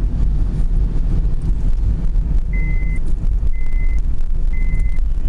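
Steady road and engine rumble inside a moving car. About halfway through, a high electronic beep starts, each about half a second long, repeating once a second.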